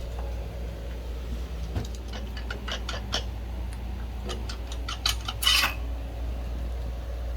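Metal tools clinking and tapping against a Yamaha R1 engine's crankcases as they are worked apart, with a short, louder scraping clatter about five and a half seconds in, over a steady low hum.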